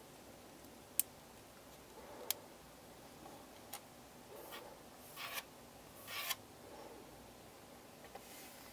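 Faint handling noise of a small plastic My Little Pony Squishy Pops toy being worked by hand: sharp little clicks about a second and two seconds in, a fainter one after, then two short scuffing rubs.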